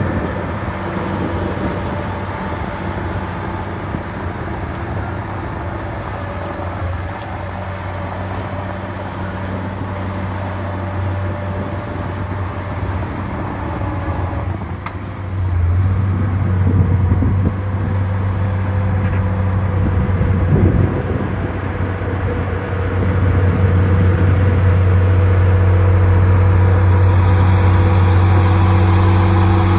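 Heavy diesel engine of earth-moving machinery running steadily with an even hum. It grows louder about halfway through and again near the end, as the machine works harder.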